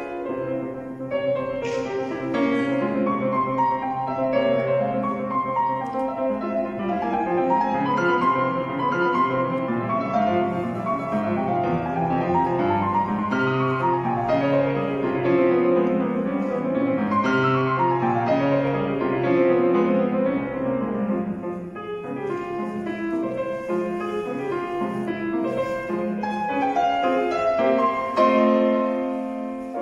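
Steinway & Sons concert grand piano played solo, a classical piece with dense, continuous passagework and quick falling runs in the middle.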